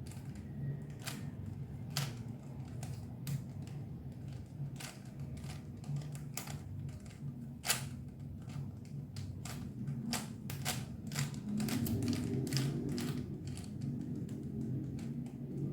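Rubik's Cube layers being twisted by hand: irregular sharp plastic clicks and snaps, a few per second at the busiest, over a steady low hum.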